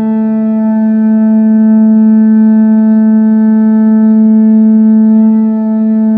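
War horn blown in one long held note: a steady, loud horn tone with many overtones.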